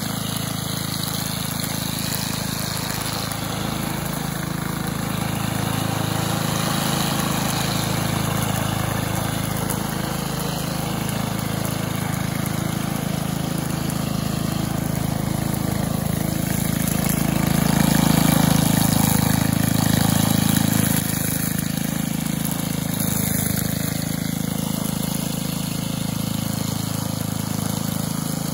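Cub Cadet WST 100 wheeled string trimmer's 140cc single-cylinder engine running steadily while trimming. The engine gets louder for a few seconds past the middle, then drops back suddenly.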